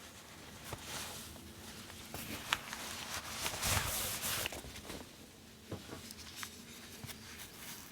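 Typing on a Singa x TGR Unikorn R2.2 custom mechanical keyboard: vintage Cherry MX switches with Kailh stems, GMK keycaps, an aluminium plate on a gummy O-ring mount. Irregular keystroke clacks, densest and loudest from about three and a half to four and a half seconds in.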